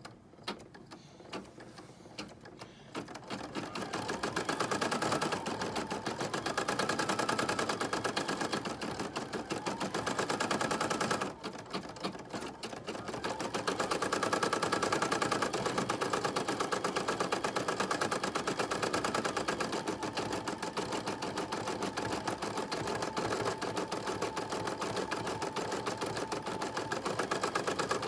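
Brother PE-770 embroidery machine stitching through felt and stabilizer, a rapid even needle rattle. It is soft for the first few seconds, then runs loud and steady, easing briefly about eleven seconds in before picking up again.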